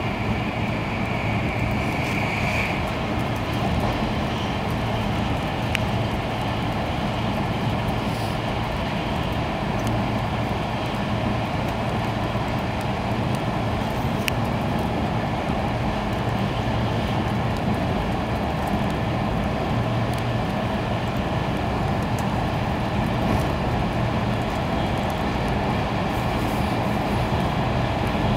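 Steady running noise inside an E2 series Shinkansen car at high speed: a continuous rush of rail and air noise over a low hum. A thin high whine fades out about two seconds in.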